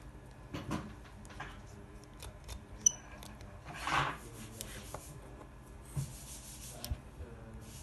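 Small tools and tiny screws handled during an iPhone 6 teardown: scattered light clicks, one sharp metallic tick about three seconds in, and a short scraping rub a second later.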